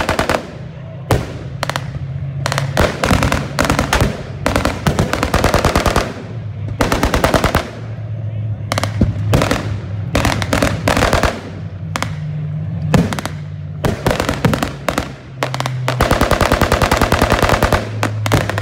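Long bursts of rapid machine-gun fire, one burst after another with short gaps between them, over a steady low hum.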